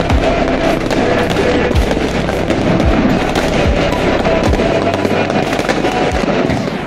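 Fireworks going off in a dense, continuous barrage: rapid crackling of firecrackers with deeper booms about once a second.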